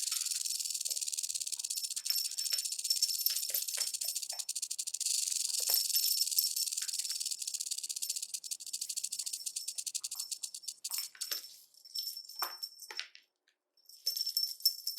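Snake sound effect: a rapid, high, dry rattling hiss, steady for about the first eleven seconds, then breaking into short bursts with a brief pause near the end.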